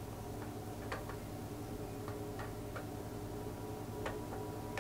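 Faint, irregularly spaced light clicks from the small metal threaded parts of a Ricohflex TLR's lens focusing mount being turned and fitted, over a steady low hum.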